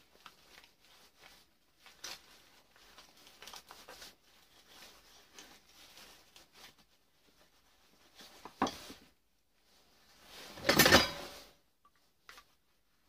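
Small scrapes, clicks and rustles of copper winding wire being picked and pulled out of a small motor armature by hand and with pliers, with a sharp click a little past halfway and a louder rasping scrape lasting about a second near the end.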